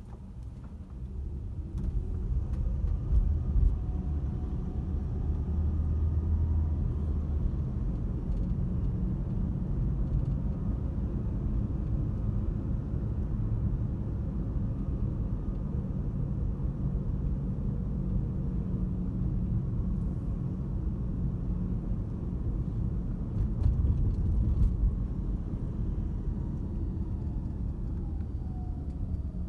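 Car pulling away from a standstill and driving along a city street, heard from inside the cabin: a steady low rumble of tyres and engine that builds over the first couple of seconds.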